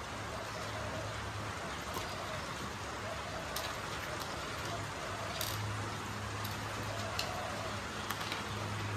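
Steady background hiss with a low hum, broken by a few faint light clicks as a clear plastic case and small metal parts are handled on the workbench.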